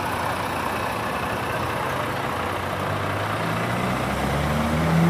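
Heavy truck engine running at a steady rumble, then revving from about three seconds in, its note rising slowly and getting louder.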